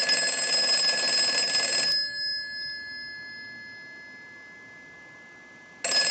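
Northern Electric Galion rotary desk telephone's bell ringer ringing on a ring cycle sent by a telephone analyzer. A ring of about two seconds dies away, there is a pause of about four seconds, and the next ring starts near the end. It shows the telephone rings in properly.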